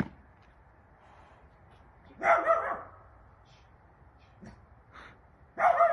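A dog barking twice at a wild boar, one short bark about two seconds in and another near the end.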